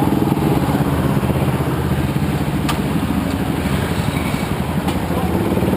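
Motorcycle engine idling steadily, with an even low pulse.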